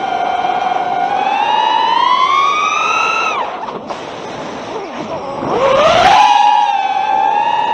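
Flyno v2 FPV quadcopter's brushless motors whining, the pitch climbing with throttle, then dropping off sharply about three and a half seconds in as the throttle is chopped. About two seconds later the motors punch back up to their loudest and settle into a steady whine.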